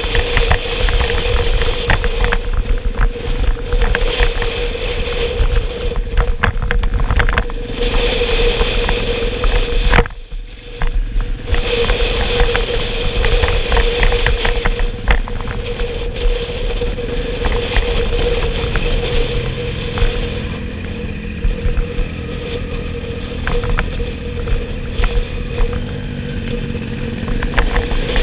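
Motorcycle riding at low speed, its engine running with a steady hum under heavy wind rush on the on-board microphone. The rush briefly drops away about ten seconds in.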